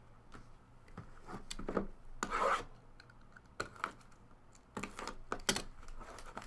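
Trading cards being handled: cards sliding and rubbing against one another in short scrapes, with scattered light clicks.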